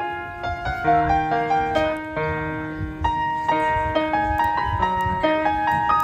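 Background piano music: a melody of single notes over held lower notes.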